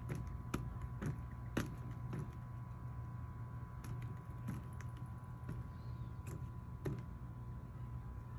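Toy garden pinwheels clicking and tapping as they are handled and turn, in short sharp ticks at uneven intervals, a few close together early on and then more scattered, over a steady low hum and a faint high tone.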